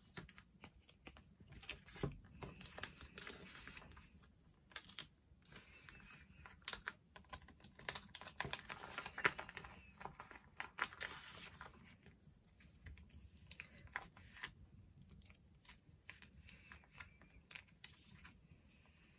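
Photocards being handled and slid into the plastic pockets of a collection page: crinkling plastic with many light clicks and taps, busiest in the first twelve seconds or so, then sparser and fainter.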